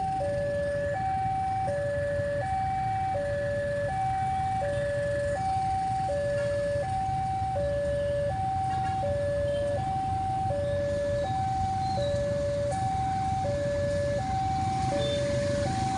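Railroad level-crossing warning alarm sounding, an electronic two-tone signal alternating steadily between a higher and a lower tone, each held just under a second. Beneath it runs a low rumble. The alarm signals an approaching train.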